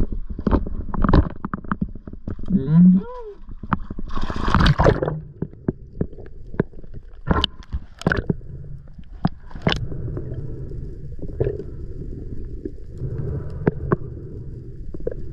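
Knocks and clicks of gear being handled, then a loud splash about four seconds in, then the muffled low gurgling rumble and scattered clicks of being underwater.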